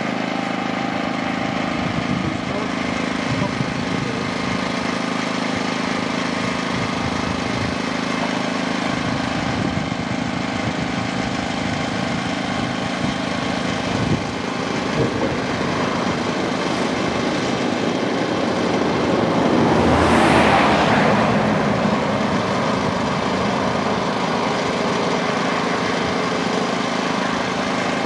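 A small engine running at a steady hum. About two-thirds of the way through, a louder rushing noise swells and fades over a few seconds.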